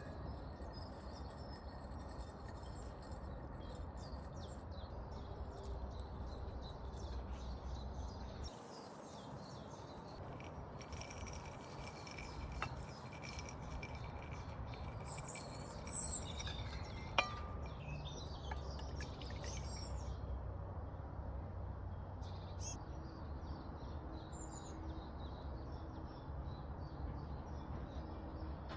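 Small garden birds chirping and calling, several at once, over a steady low rumble, with two brief sharp knocks a little past the middle.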